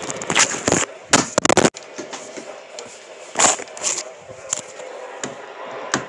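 Handling noise: a run of irregular knocks and rustles from a phone camera being moved around, with a loud cluster of knocks a little after a second in and another about three and a half seconds in.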